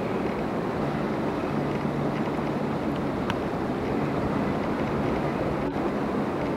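Steady rushing of a fast mountain river, an even noise with no breaks.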